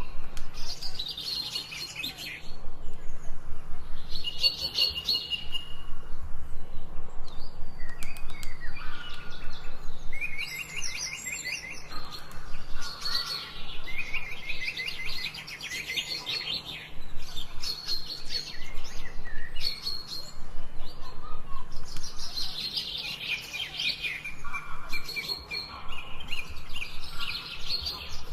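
Songbirds singing: fast trilled phrases a second or two long, repeated with short gaps, over softer calls.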